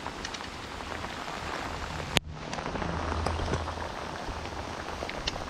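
Steady rain falling on a river and the bank around it: an even hiss with many close drops ticking on nearby surfaces. There is one sharp click about two seconds in.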